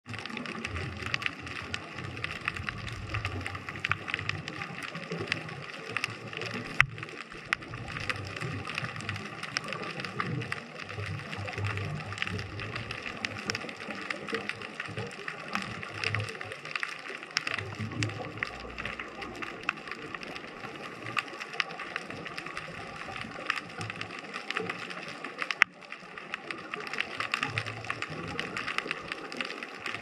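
Underwater ambience heard through a GoPro housing: a dense, steady crackle of fine clicks, with irregular low bubbling rumbles and a couple of sharper clicks.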